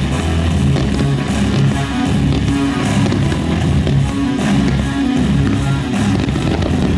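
Loud rock music with strummed electric guitar and bass guitar, playing steadily throughout.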